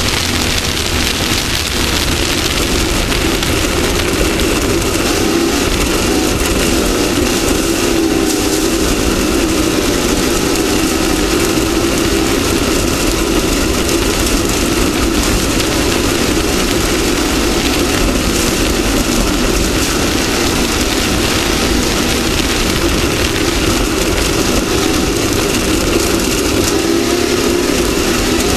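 Off-road race vehicle's engine running hard and steady at speed, under a constant noisy rush; its pitch wavers slightly and shifts near the end.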